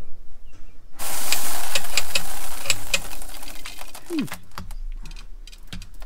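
Planter seed rushing out of a seed meter into a metal bucket: a loud hissing pour full of small ticks that starts suddenly about a second in and thins out to scattered ticks near the end.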